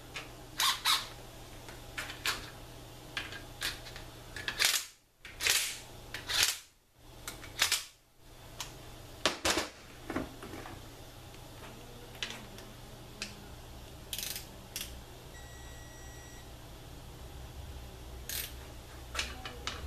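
Tools being handled on a steel workbench: a string of sharp clicks and metallic knocks, some loud, with a few short scraping rustles between them.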